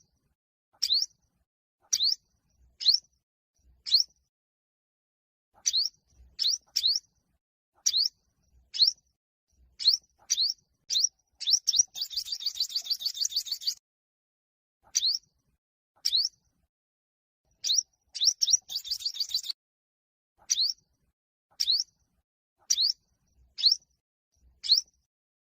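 Olive-backed sunbird singing: a run of sharp, high, single notes about once a second, broken twice by a rapid trill lasting a second or two.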